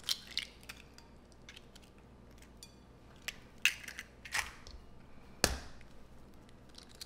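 Eggs being cracked and their shells handled to separate the yolks: a few short, sharp cracks and knocks of eggshell, with small ticks in between. The loudest knock comes about five and a half seconds in.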